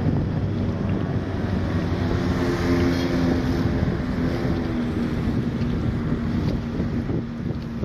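Wind buffeting the microphone over the steady hum of a boat engine running in the harbour; the hum fades out near the end.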